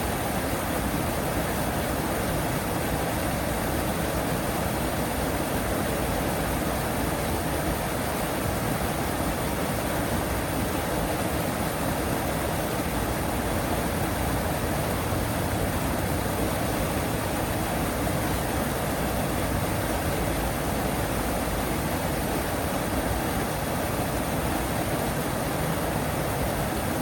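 Steady rushing noise of flowing water, even and unbroken, with no duck calls standing out.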